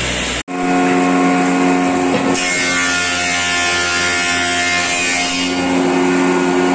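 Woodworking power tool running with a steady pitched hum. From about two seconds in until about five seconds, a harsher, hissing cutting noise rides on top as it cuts cedar wood.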